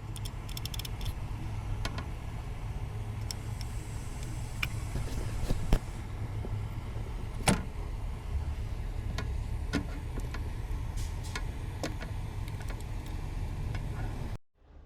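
Light, irregular clicks and clinks of metal clock parts being handled, over a steady low rumble. There is a quick flurry of small clicks at the start and two sharper knocks about six and seven and a half seconds in.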